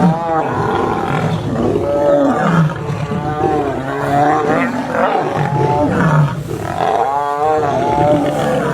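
Lions roaring during a fight: several loud calls overlap, bending up and down in pitch without a pause.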